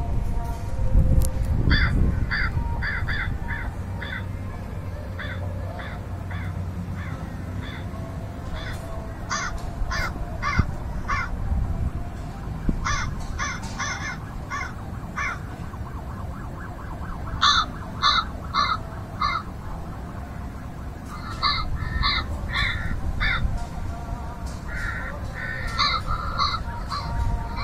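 Crows cawing in repeated runs of four to six short, evenly spaced caws, a run every few seconds, over a steady low rumble.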